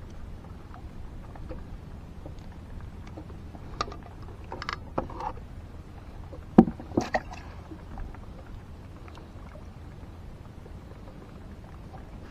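Knocks and clatters from a metal bucket of water and gear being handled on a wooden boat deck, over a steady low rumble. A group of light knocks comes a few seconds in, and the loudest knock, with a couple of smaller ones after it, falls about six and a half seconds in.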